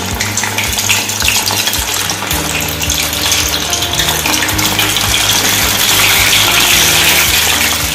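Batter-coated paneer pieces sizzling and bubbling as they are dropped one by one into hot oil for deep-frying, the sizzle growing louder toward the end before cutting off suddenly.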